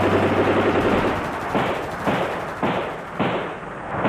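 Battle gunfire: a rapid burst of automatic fire for about the first second, then separate rifle shots about every half second, each dying away briefly.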